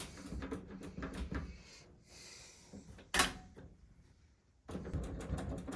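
Clicks and light knocks from hard objects being handled, with one sharp click about three seconds in and a rapid run of clicking near the end.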